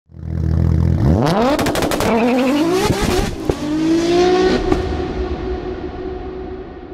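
Logo sound effect: an engine idles low, then revs up sharply, rising in pitch, over a string of glitchy clicks, before settling into a held tone that slowly fades.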